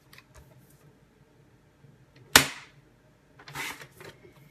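Paper trimmer cutting a sheet of paper: a sharp clack about two seconds in, then a short swish about a second later.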